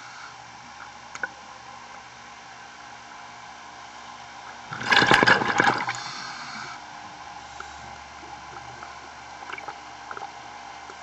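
Scuba diver's regulator exhaling underwater: one loud burst of bubbles about five seconds in, lasting a little over a second, over a steady underwater hiss with a few small clicks.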